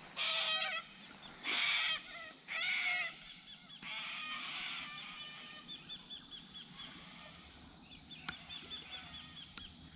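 Three loud, harsh bird calls, each under a second long, in the first three seconds. After them comes a quieter stretch of faint, repeated ticking.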